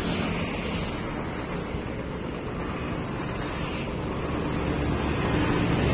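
Steady rumbling noise of wind buffeting the microphone, with a low hum underneath, growing a little louder toward the end.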